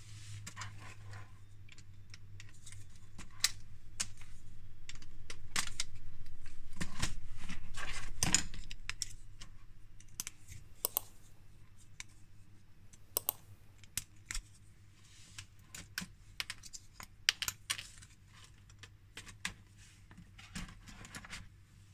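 Hard plastic LEGO Technic parts clicking, tapping and rattling as panels are handled and snapped back onto the buggy, with many short sharp clicks. In the middle comes a longer stretch of louder rubbing and scraping of plastic that builds up and stops about eight seconds in.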